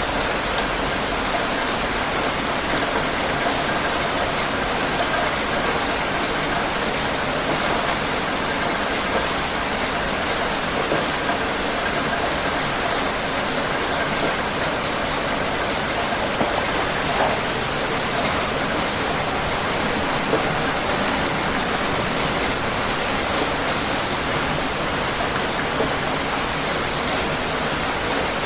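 Heavy rain falling steadily: a dense, even hiss of rain, with a few slightly louder drops standing out now and then.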